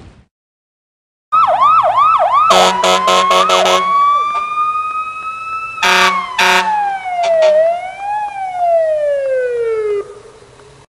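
Emergency vehicle siren: a fast yelp swooping up and down several times, then a slow wail rising and falling, broken by a quick run of horn blasts and two more loud blasts; it cuts off near the end.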